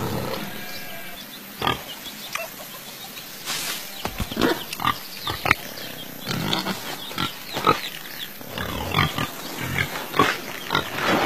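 Pigs grunting, a string of many short, separate grunts that come thicker toward the end.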